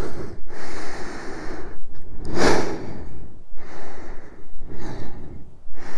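A person breathing heavily right against a microphone tucked inside a helmet: about four long, loud, airy breaths, with a sharper, louder one about two and a half seconds in.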